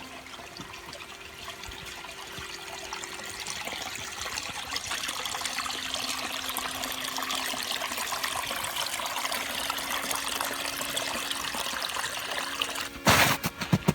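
Flowing water trickling steadily, growing louder over the first few seconds. A brief loud rustle comes about a second before the end.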